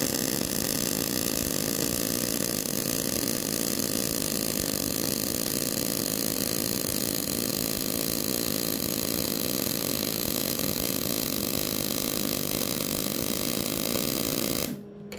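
Miller-Matic 185 MIG welding arc running a long bead on 1/8-inch mild steel, steady, then cutting off near the end. It runs on 0.023 wire at a wire feed setting of 70 with the voltage unchanged: smoother than at 60, though still with a little spitting and sputtering from a feed slightly slow for the heat.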